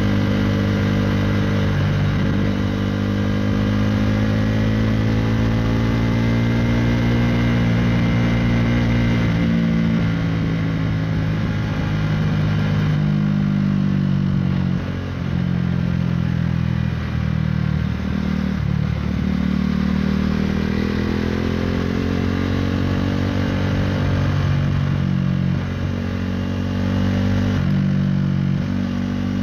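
KTM Duke 390's single-cylinder engine through an Akrapovic Racing Line exhaust, under way on a winding road. The engine note rises and falls with the throttle, with several brief dips where it drops away and picks up again.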